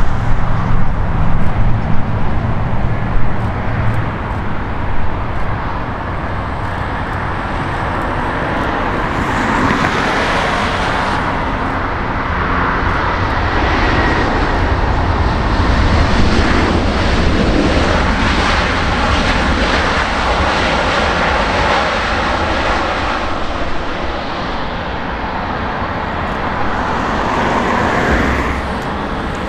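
Airbus A350-1000 jet engines (Rolls-Royce Trent XWB) on landing: an uneven low rumble for the first few seconds as the airliner comes over on final approach, then a louder, steady jet roar that builds from about nine seconds in through the touchdown and rollout, and eases in the later part.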